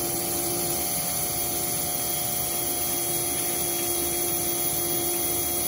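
Jones & Shipman Format 1000M CNC cylindrical grinder grinding a spinning part under flood coolant. The wheel, spindle and coolant make a steady even noise with a constant hum that holds unchanged.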